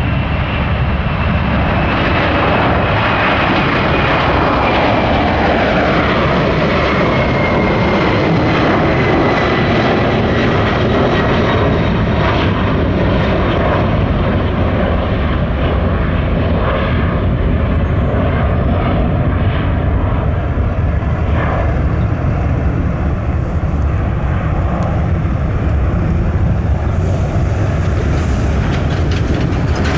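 Jet airliner's engines running at high power as it passes, a loud steady roar with a whining tone that falls in pitch over the first ten seconds or so.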